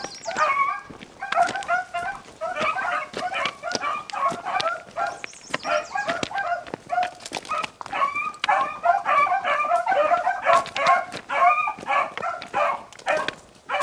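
A pack of several beagles baying together in near-continuous, overlapping calls: hounds giving tongue while running a rabbit's scent trail.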